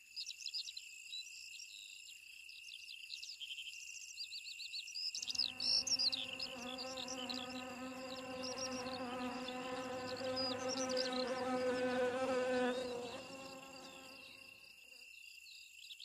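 A flying insect buzzing close by: a steady droning hum that starts about five seconds in and fades out near the end. Underneath it throughout are a steady high insect trill and quick high chirps.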